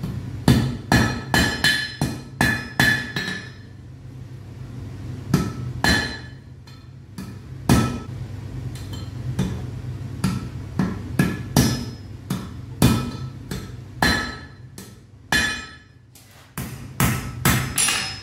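Blacksmith's hammer striking iron on an anvil in irregular runs of blows, some quick and some spaced, each ringing with a clear metallic tone. A steady low hum runs underneath.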